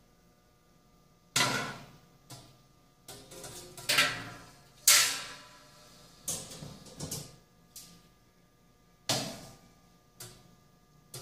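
Stainless-steel parts being loaded into a vertical autoclave's steel chamber: the perforated heater cover and a wire-mesh basket knock and scrape against the chamber. There are about eight to ten separate metallic clanks with short ringing tails, the loudest about five seconds in.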